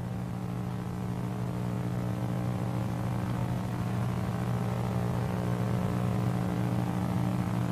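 A steady low hum with several evenly spaced overtones over a light hiss, growing slightly louder.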